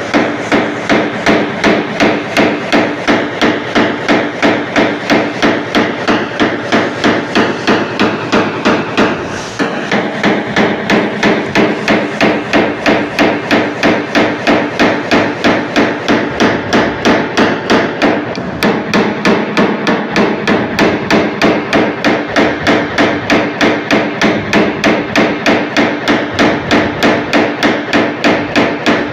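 A small hammer tapping a PDR tap-down punch against a car's sheet-metal panel in a steady rhythm of about three light taps a second, with short breaks about 9 and 18 seconds in. The taps knock down the fine high spots left in the repaired dent.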